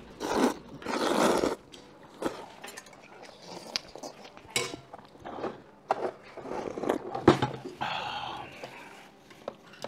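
Noodles being slurped, loudly, in the first second and a half, then scattered clinks of metal chopsticks and spoons against stainless steel bowls, one sharp clink about seven seconds in, and another slurp near the end.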